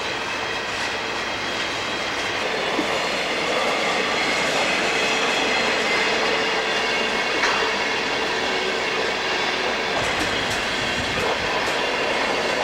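Freight cars rolling past close by: a steady rumble of wheels on rail with a thin steady wheel squeal, and a few sharp clicks of wheels over rail joints around ten seconds in.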